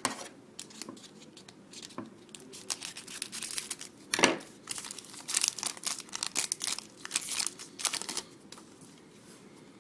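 Hockey card pack wrapper being torn open and crinkled by hand, with a sharp snap about four seconds in and a dense run of crackling after it.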